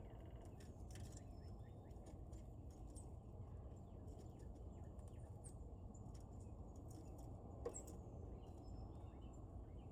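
Faint outdoor ambience: a steady low background rumble with scattered faint bird chirps and ticks, and one sharp click about three-quarters of the way through.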